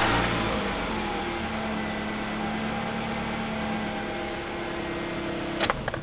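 Four-cylinder car engine idling steadily just after starting, running smoothly now that a new spark plug and ignition coil have been fitted in place of a worn plug and weak coil that had made it run rough. The sound stops abruptly with a short click near the end.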